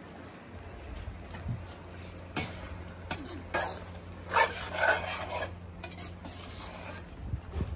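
Metal slotted spoon stirring and scraping around a wok of sizzling, saucy chicken masala, with a run of clattering strokes in the middle, over a steady low hum.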